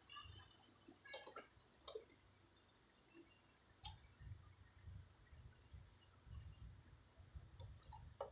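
Near silence: room tone with a few faint, scattered sharp clicks and a faint, uneven low rumble in the second half.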